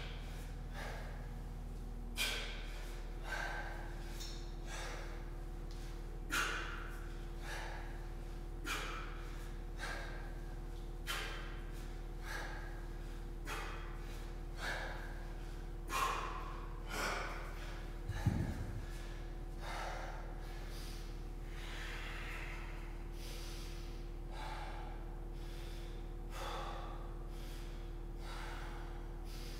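A man's short, forceful exhalations, one with each kettlebell swing, repeating about once a second. About two-thirds of the way through there is a louder, low-pitched thud or grunt.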